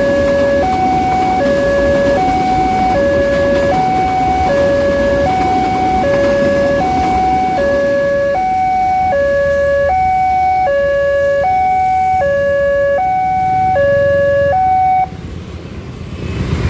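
Railway level-crossing warning alarm sounding an alternating two-tone electronic signal, switching pitch about every three quarters of a second. It warns that a train is approaching or passing, and it stops abruptly about 15 seconds in.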